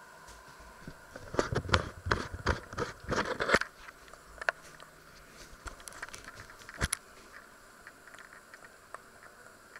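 Handling noise as the camera is picked up and moved: a quick run of clicks, knocks and scrapes lasting about two seconds, then two single clicks a few seconds apart.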